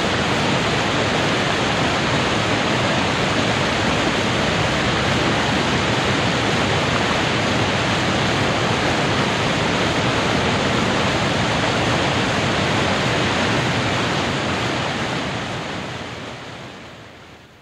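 Water pouring over a weir in full flood: a loud, steady rush of falling water. It fades out over the last few seconds.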